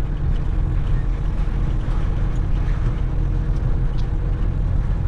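Heavy truck's diesel engine running at low speed while the truck drives slowly, heard from inside the cab as a steady low hum.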